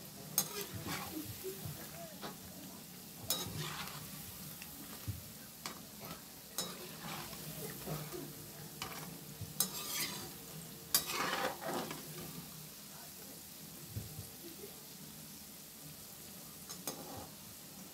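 Methi pakoras sizzling as they deep-fry in hot oil in a metal kadhai. A slotted metal spoon turns them, scraping against the pan now and then, with the loudest scrapes about eleven seconds in.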